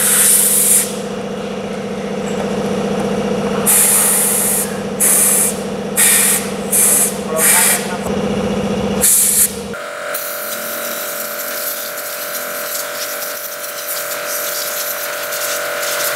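Compressed-air blow gun firing short hissing blasts, about seven of them, to blow dust out of the engine bay and air filter housing, over a steady machine hum. About ten seconds in, the hum cuts off abruptly and a different steady hum carries on with no more blasts.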